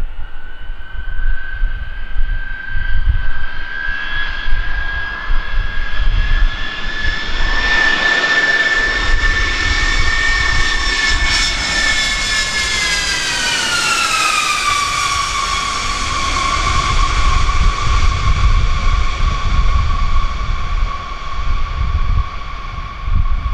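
Lockheed C-5 Galaxy's four turbofan engines passing low overhead on landing approach. The engine whine rises slightly in pitch as the aircraft nears, then drops sharply a little past halfway as it goes by and holds at the lower pitch. An irregular low rumble runs underneath.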